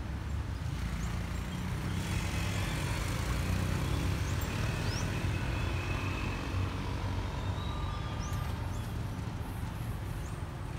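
A motor vehicle passing on the road: a low rumble with tyre hiss that swells a couple of seconds in and slowly fades, with a few short high chirps over it.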